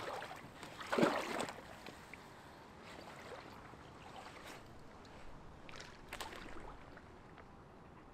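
Water splashing and sloshing at the lake's edge in a few short bursts, the loudest about a second in, over a faint steady outdoor background.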